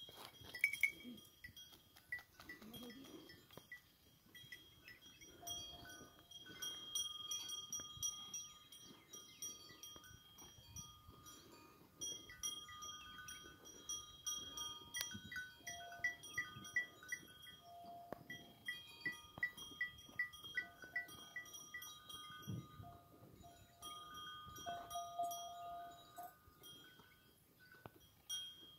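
Faint sheep bleats over a steady high-pitched buzzing that switches on and off, with runs of rapid ticking.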